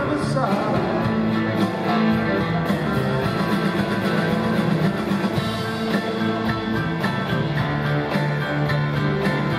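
Live blues-rock band playing an instrumental passage: Stratocaster-style electric guitar over electric bass and drum kit, with a steady beat, recorded from the arena audience.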